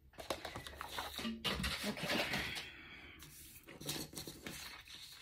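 Rustling and light handling noises, plastic packaging and stiff materials being moved and set down, in irregular bursts with a few soft knocks.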